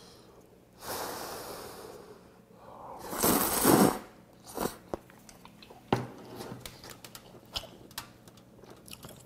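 A person slurping ramen noodles about a second in, then a louder slurp of soup broth from a bowl a little past three seconds, followed by chewing with wet mouth clicks and smacks.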